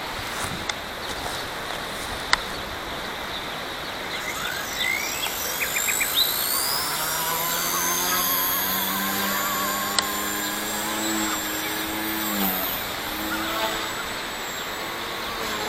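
XK K130 RC helicopter's brushless motors spinning up on a 3D-printed main gear: a high whine rises from about five seconds in, then the rotor settles into a steady hum that dips briefly in pitch near the end. Two sharp clicks are heard over a steady background haze.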